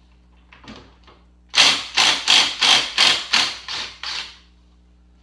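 A mallet striking the front suspension hardware of a Club Car DS golf cart, about eight quick blows at roughly three a second, to knock loose the bolts and bushings.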